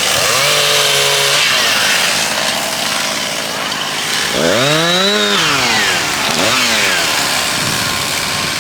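Two-stroke chainsaw cutting up a felled tree, revving up and down: its pitch climbs to full throttle about four and a half seconds in and drops back, then surges again briefly.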